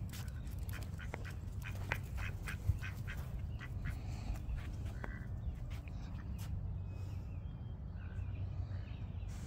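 Mallard duck quacking, a quick run of short quacks about two seconds in and a few scattered quacks after, over a steady low rumble.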